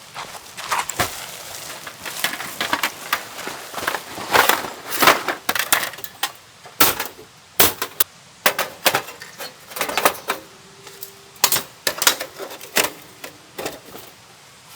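Irregular clatter of short knocks and clicks, as of hard objects such as camp gear or wood being handled and set down.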